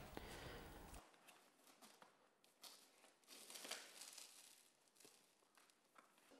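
Near silence, with faint crinkling and rustling of plastic film and a foam edge-insulation strip being pressed into place by hand, a little louder around the middle.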